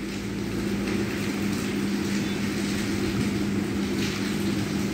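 A steady background hum with an even hiss under it, unchanging throughout, with no single sound standing out.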